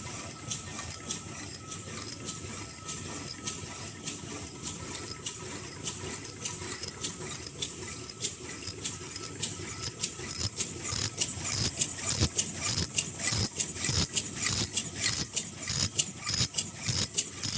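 Automatic KF94 fish-shaped mask production machine running: a steady mechanical hum with a continuous run of sharp clicks and clatter.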